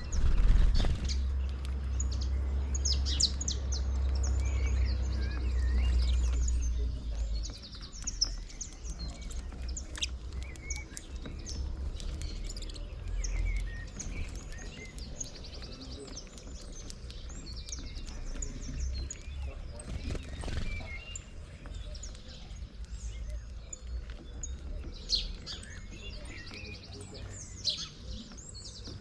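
Small birds chirping and twittering, with many short, high calls overlapping throughout. A low rumble sits under them for the first seven seconds or so, then drops away.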